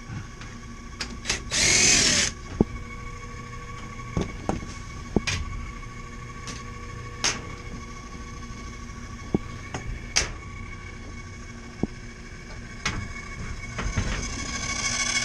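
A cordless drill-driver spins briefly about two seconds in, backing out a panel screw. Scattered clicks and knocks follow as screws and sheet-metal panels are handled, over the steady hum of the still-powered air-conditioning unit. A louder rushing sound builds near the end.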